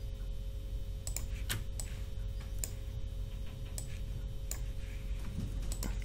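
Computer mouse clicks, about half a dozen single clicks at uneven spacing over a steady low electrical hum.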